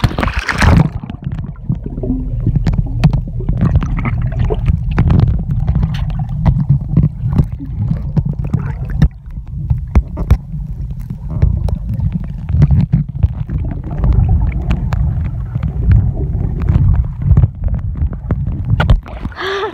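Sound picked up by a phone microphone held underwater in a swimming pool: a muffled low rumble of moving water, with many small crackles and clicks from bubbles and water against the microphone. A splash right at the start as it goes under.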